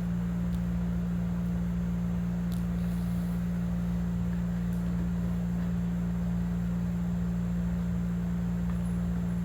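A steady low-pitched mechanical or electrical hum that never changes, with a few faint high ticks.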